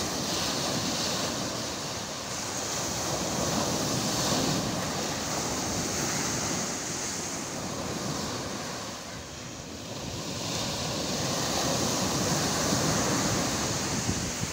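Storm surf on the Black Sea breaking and washing over a pebble beach: a steady rush of waves that swells and eases, dipping briefly about two-thirds of the way through. Wind buffets the microphone.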